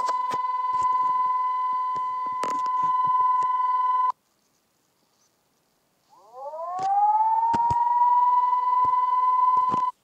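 Emergency alert alarm tone: a steady, high-pitched siren tone that cuts off suddenly about four seconds in. After two seconds of silence it winds back up, rising in pitch to the same steady tone, and stops abruptly just before the end. Scattered clicks run through it.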